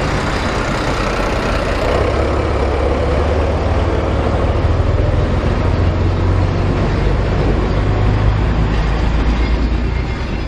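Regiotrans passenger train moving along the platform: a steady low engine drone over the rumble of wheels on the rails, easing off slightly near the end.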